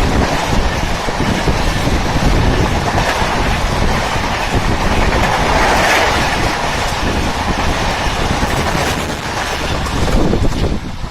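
Express passenger train passing at speed: a loud, steady rush of wheels on the rails with rapid clatter.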